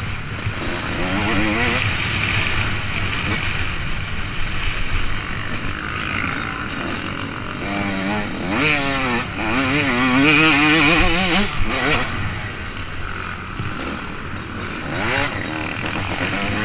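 Motocross bike engine racing on a dirt track, revving up and down with the throttle and gear changes. The engine note climbs sharply about eight seconds in and wavers for several seconds before dropping back.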